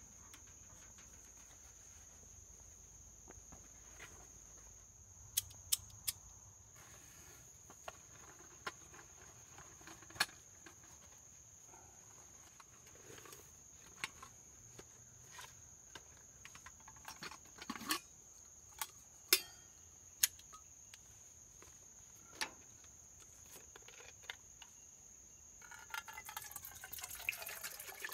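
Steady high-pitched insect chirring throughout, with scattered clicks and clinks as an aluminum coffee percolator and its parts are handled. Near the end, water is poured from a plastic bottle into the percolator, the gurgle rising in pitch as it fills.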